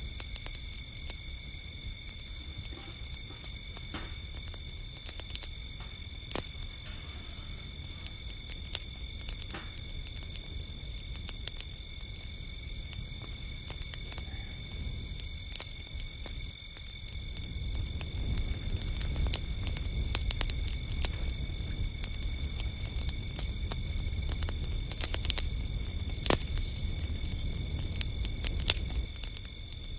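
A steady, high-pitched night chorus of insects trilling, with scattered crackles and pops from firewood burning in a small steel fire pit. From about two-thirds of the way in, the crackling comes more often over a low rumble of the flames.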